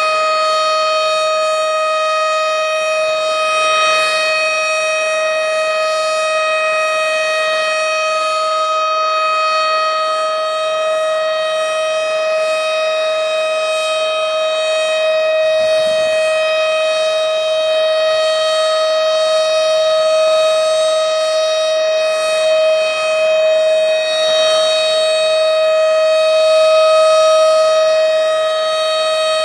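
Tornado warning siren sounding a steady, loud wail held at one pitch, without rising or falling.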